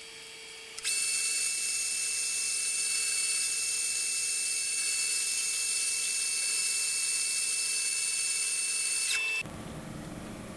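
Metal lathe taking a finishing cut on a turned handle: a steady, high-pitched whine of several held tones sets in about a second in and cuts off suddenly near the end, giving way to a quieter, lower mechanical running noise.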